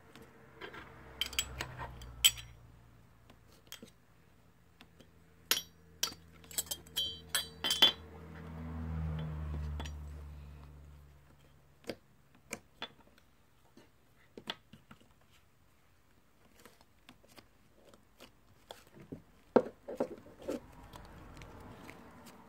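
Small hard objects clinking against each other: a run of sharp clinks that ring briefly, thickest around the middle, with scattered clicks later. A low hum swells and fades partway through.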